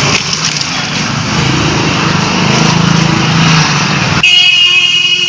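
Busy street traffic with small engines running, then a vehicle horn sounds one steady held note about four seconds in, lasting a second and a half.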